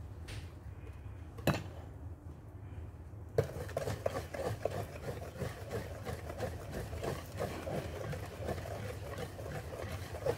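Wire whisk beating a butter-and-sugar mixture in a metal pot: rapid scraping and clicking of the wires against the pot, which starts up strongly about a third of the way in. A single sharp knock comes about a second and a half in.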